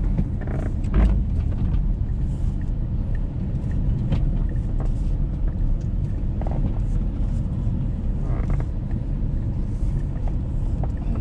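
Car driving on a wet road, heard from inside the cabin: a steady low rumble of engine and road noise, with a few light knocks.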